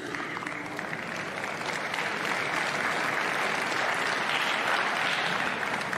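Arena crowd applauding. The applause breaks out suddenly, builds over the first two seconds, then eases slightly near the end.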